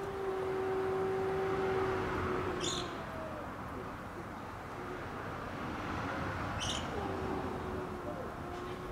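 Cat giving long, low, drawn-out yowls, the warning call of rival cats facing off over territory: one about three seconds long at the start, another beginning about seven seconds in. Two short bird chirps come in between, over a steady background of traffic.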